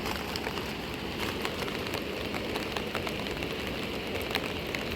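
Steady rain, with many separate drops ticking sharply on a surface close by.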